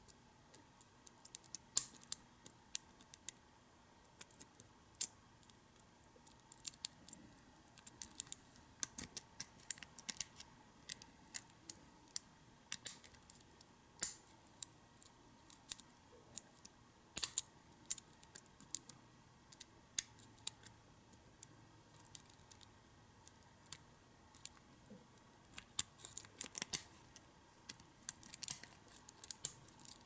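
Steel lock pick and tension wrench working the pins of a five-pin rim cylinder with a Yale keyway: light, irregular metallic clicks and scrapes as the pins are lifted and set one by one.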